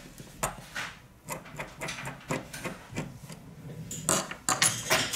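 Small precision screwdriver clicking and scraping against the screws and metal parts inside an LG G5 phone, in a run of sharp, uneven clicks and taps. A cluster of louder clicks and knocks comes about four seconds in, as the phone's internal parts are handled.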